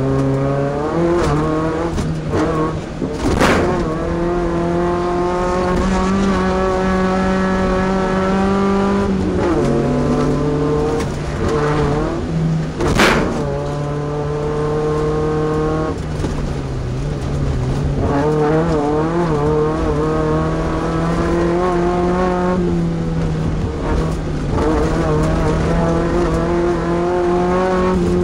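Off-road race truck's engine running hard under load, its pitch stepping several times with gear changes. Two loud thumps stand out, one early on and one near the middle.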